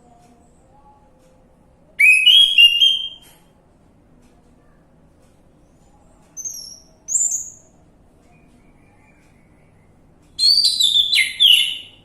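Orange-headed thrush singing in three bursts of quick, varied whistled phrases. A burst comes about two seconds in, a short pair of high notes a few seconds later, and a longer, fuller burst near the end.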